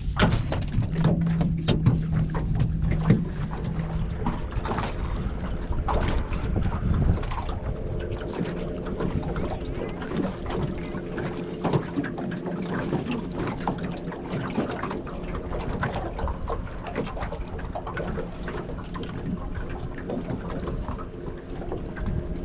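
Wind buffeting the microphone over water lapping, with scattered small clicks and taps and a faint steady low hum, most noticeable in the first few seconds.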